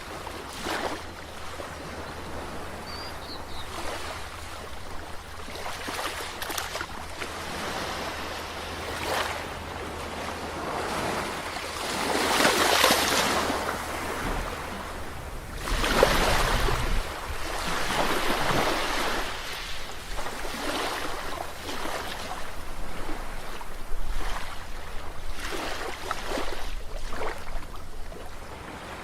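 Ocean waves breaking and washing ashore, swelling and ebbing in surges every few seconds, with the strongest breakers near the middle.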